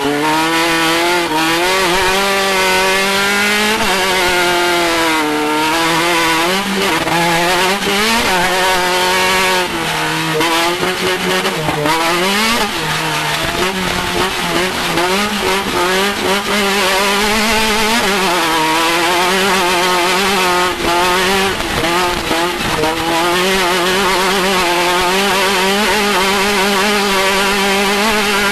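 Off-road race car's engine running hard, its pitch rising and falling as the driver keeps getting on and off the throttle, with a steadier drone underneath.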